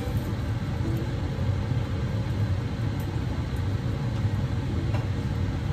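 Water being boiled on the stove, a steady low rumble.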